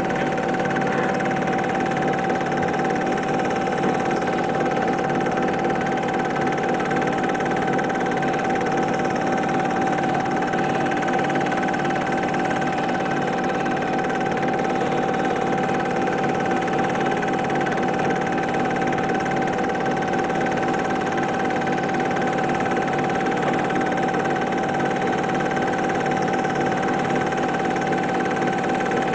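Super 8 film projector running: a steady mechanical whir with a constant tone, unchanging throughout.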